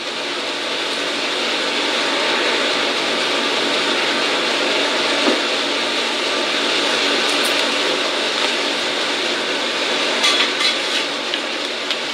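Steady sizzle of food frying in a pan on the stove, with a few sharp clicks near the end.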